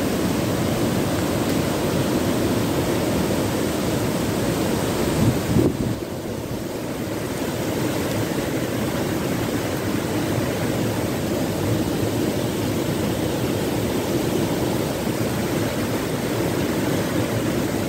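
Steady rushing of a swollen, flooding river in full spate, mixed with falling rain.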